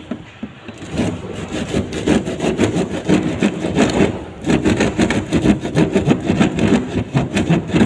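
Hand saw cutting into a ceiling board overhead with quick back-and-forth strokes. The sawing starts about a second in and breaks off briefly a little past the middle.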